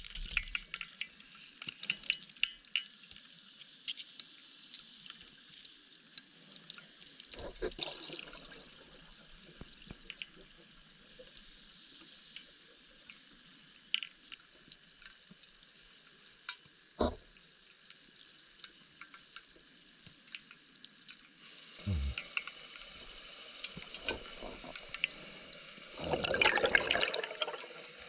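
Underwater sound on a rebreather wreck dive: a steady high hiss with scattered crackling clicks, a few dull knocks, and a louder rush of water noise about a second long near the end.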